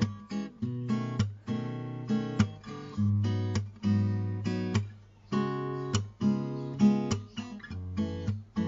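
Acoustic guitar music: strummed and plucked chords changing every half second or so, with no singing.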